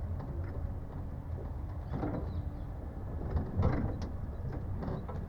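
Sightseeing land train running along a garden path: a steady low rumble with the carriages rattling and creaking, and louder clatters about two seconds in and again just before four seconds.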